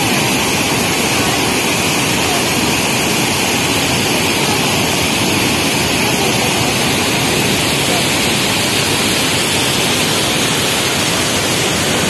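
Gundichaghagi waterfall rushing over rock ledges into a pool: a steady, loud hiss of falling water.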